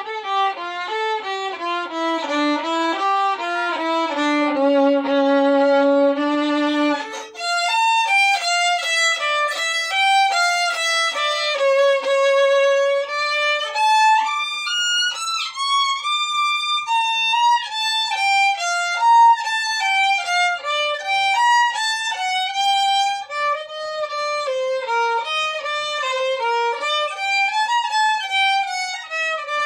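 Solo violin, bowed, playing an unaccompanied melody in quick stepwise notes. After a brief break about seven seconds in, the line continues in a higher register.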